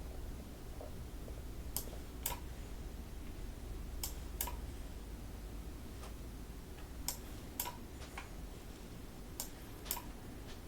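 Faint clicks at a computer desk, four pairs of them with the two clicks in each pair about half a second apart and the pairs two to three seconds apart, over a low steady hum.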